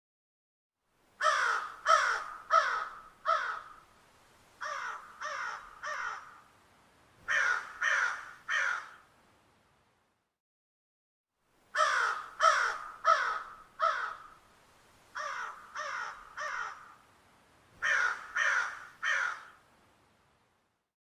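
Crow cawing in short harsh series: four loud caws, three quieter caws, then three more, and after a pause of about two seconds the same sequence of four, three and three caws again.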